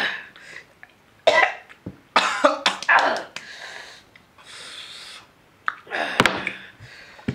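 A person coughing in several loud fits, then a bottle knocking against the table about six seconds in.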